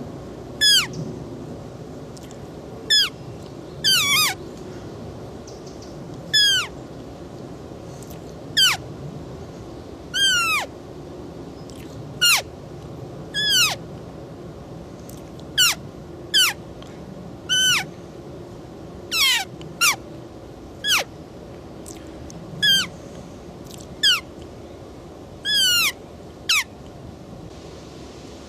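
Roe deer giving a long series of short, high-pitched calls that slide downward in pitch, about twenty of them, one every second or two, sometimes in quick pairs.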